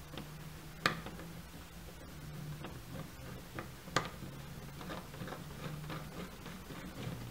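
Small clicks and ticks of a rubber-duck antenna being twisted onto its threaded connector on a clear plastic receiver case, with two sharper clicks, about a second in and about four seconds in, over a steady low hum.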